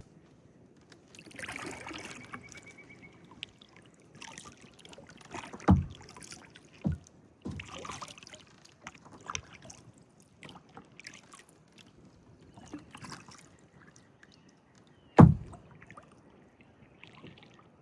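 Kayak paddle strokes in still water: irregular swishes and splashes as the blades dip and lift, with a few sharp knocks, the loudest about fifteen seconds in.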